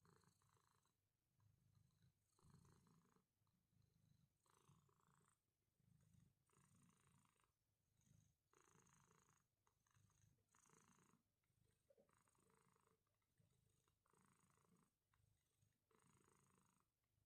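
Domestic cat purring faintly and steadily, the purr changing in an even in-and-out cycle about once a second with its breathing.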